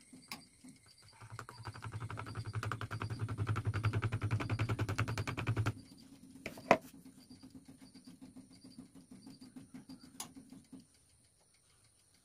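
A plastic sieve is shaken and tapped to sift wheat flour and cocoa powder into a plastic bowl: a rapid rattle of taps lasting about four seconds that stops suddenly. About a second later comes a single sharp knock, and a fainter click follows a few seconds after that.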